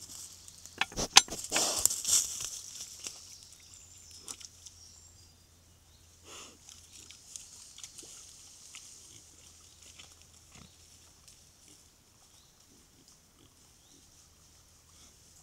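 Wild boars grunting and moving through dry leaf litter. The sound is loudest in the first three seconds, with a few sharp clicks, then fades to occasional fainter sounds.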